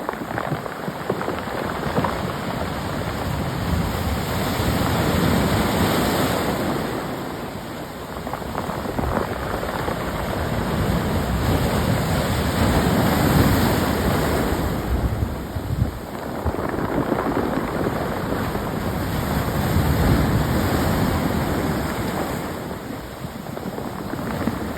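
Sea waves surging up and draining back over a beach of smooth round pebbles, the stones rattling and clattering against each other in the wash. The surf swells and fades in slow surges about every seven seconds.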